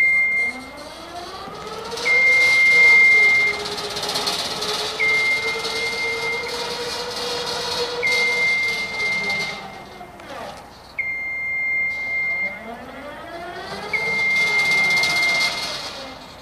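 Battery-electric Genie Z-40/23N boom lift driving. Its drive motor whines, rising in pitch as it gets going, holding steady, then dropping and stopping about two-thirds in, before rising and falling again near the end. Over this its motion alarm sounds long steady beeps, about one every three seconds.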